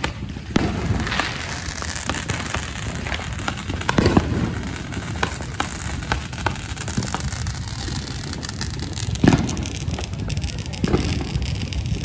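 Fireworks going off: a dense crackle of many small pops, with louder bangs about four seconds in and again about nine seconds in.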